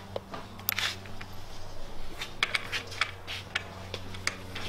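Irregular light metallic clicks and rattles as washers and nuts are handled and fitted onto the bolts of a sewing-machine motor's mounting bracket, over a steady low hum.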